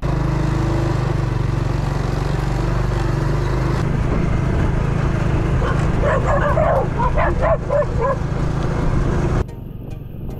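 A dog barks in a quick run of short, high barks and yips for about two seconds, a little past the middle, over a loud, steady vehicle engine running. The engine sound cuts off abruptly near the end.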